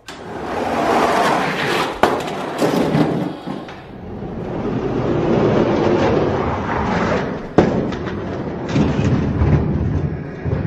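Die-cast toy monster trucks rolling fast down a plastic Hot Wheels track, a rattling rumble that swells and fades twice, with two sharp knocks, about 2 seconds in and again near three-quarters of the way through.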